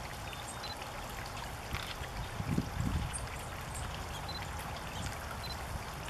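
Water splashing and trickling in a stone birdbath as small birds bathe and flutter in it, with water dripping from the basin's rim. A few faint, short high chirps sound over it.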